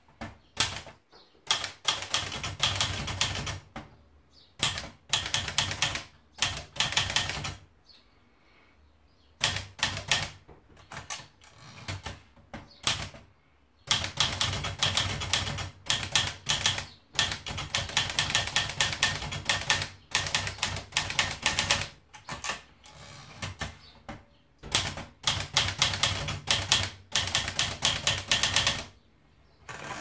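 Underwood 315 portable manual typewriter being typed on: quick runs of key strikes clacking onto the paper, broken every few seconds by short pauses.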